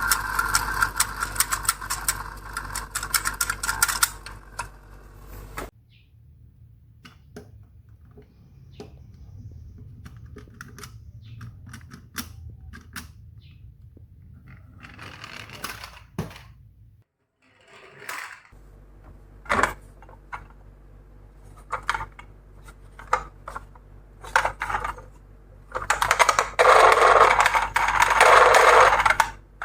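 Miniature toy cars clattering and rattling: loud rattling at the start and again near the end, with scattered light clicks and taps in between.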